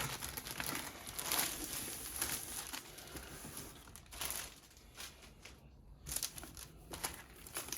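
Plastic packaging of a diamond painting kit crinkling as it is handled and unwrapped, in uneven spells with a quieter stretch about two-thirds of the way through.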